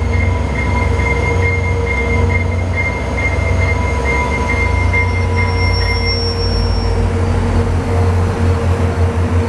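VIA Rail F40PH-2 diesel locomotive, with its EMD 16-cylinder two-stroke engine, running close by as the train creeps up to a stop at the platform: a loud low drone with a steady whine over it. A thin high squeal sounds briefly in the middle.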